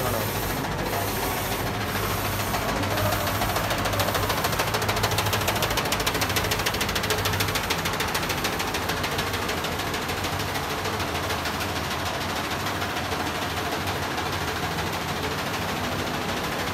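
DTF printer and its powder shaker running together: a steady machine hum with a fast rattling whir, and the print-head carriage sweeping back and forth about once a second near the start.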